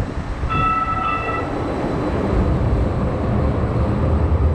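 RTD light-rail train running, a steady low rumble, with a brief high steady tone about half a second in.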